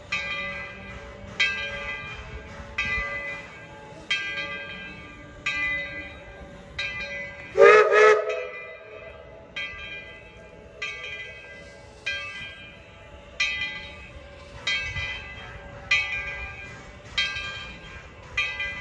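Steam locomotive's bell ringing steadily, one stroke about every 1.3 seconds, each stroke ringing on as it decays. A little before the middle, one short, loud blast of the steam whistle sounds over it.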